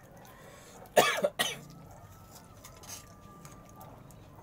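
A person coughing twice in quick succession, two short, sharp coughs about half a second apart.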